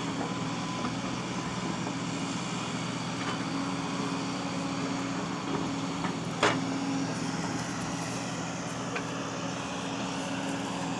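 Excavator's diesel engine running steadily, with one sharp metallic knock about six and a half seconds in and a fainter one earlier.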